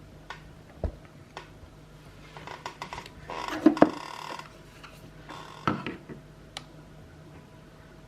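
Handling noise from a plug-in doorbell chime as its small pairing button is pressed and held: scattered light clicks, then a cluster of rattling with two sharp knocks a little over three and a half seconds in, and another knock near six seconds.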